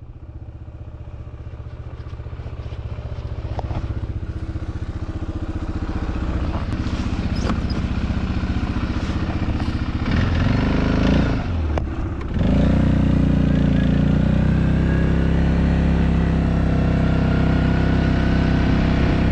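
A small engine running, growing steadily louder over about ten seconds, dipping briefly a little after ten seconds, then running loud and steady.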